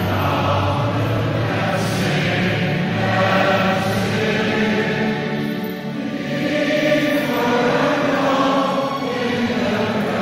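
Church choir singing a hymn in held notes, with a short break between phrases about six seconds in.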